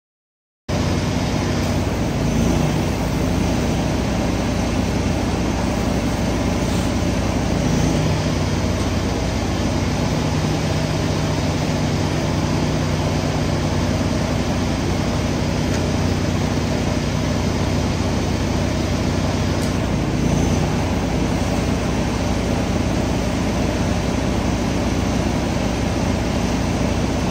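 A small engine running steadily, with a steady hiss of water spraying from a rinse hose.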